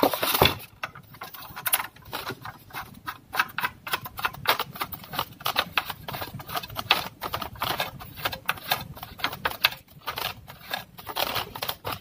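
Plastic fittings clicking and knocking in quick, irregular succession as a pressure relief valve is screwed by hand onto an electric water heater's plastic water inlet.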